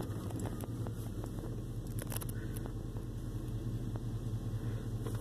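Dodge Ram pickup heard from inside the cab while driving slowly: a steady low engine and road hum, with a few faint clicks from the cab.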